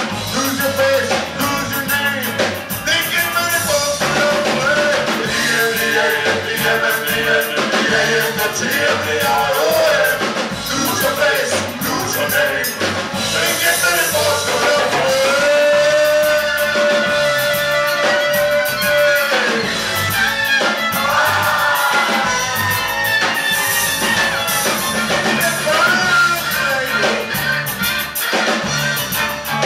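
Live band playing with drums, saxophone and violin, with a long held note about halfway through.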